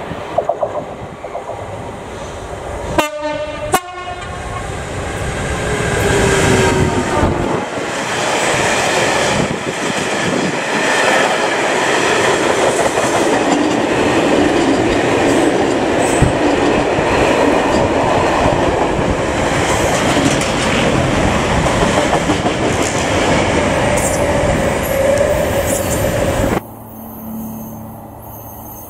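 A Class 66 diesel freight locomotive sounds two short horn blasts, then a freight train of ballast hopper wagons rolls past close by with a loud, steady clatter of wheels over the rail joints. The sound drops away abruptly near the end.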